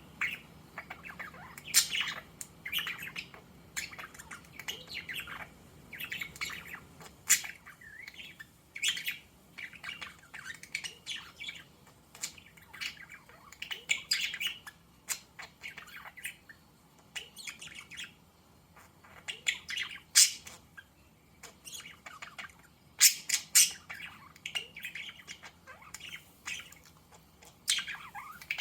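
Pet budgerigars chirping and warbling, with frequent short calls and a few sharper, louder squawks scattered throughout.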